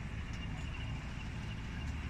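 Steady low rumble of a small boat's engine running under way, mixed with wind buffeting the microphone and water rushing past.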